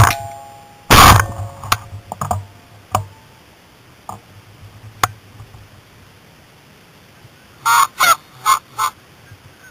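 Two shotgun blasts from a semi-automatic Beretta Xtrema 12-gauge, the first right at the start and the second about a second later, followed by a few fainter sharp pops. Near the end, a quick run of short goose honks.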